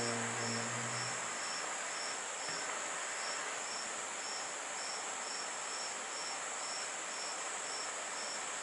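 Crickets chirping steadily, about two chirps a second over a continuous high trill. A sustained low musical note fades out about a second in.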